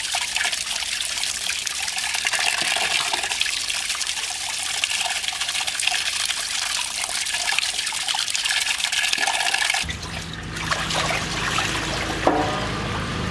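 Water pouring onto fish and hands in a metal pot as the fish are rubbed and rinsed: a steady splashing. About ten seconds in the splashing stops abruptly and a low steady hum with a few short tones takes over.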